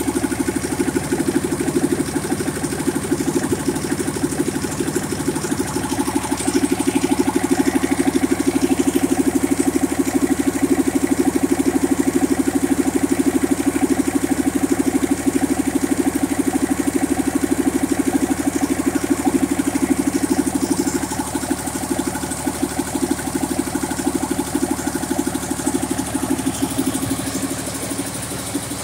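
2005 Cummins ISC-285 8.3-litre inline-six diesel engine running steadily during its test run, a fast, even diesel clatter. It gets slightly quieter in the later part.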